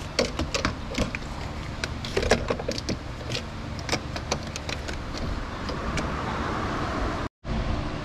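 Irregular clicks, knocks and rattles of hands and tools working on a car door, over a steady low hum.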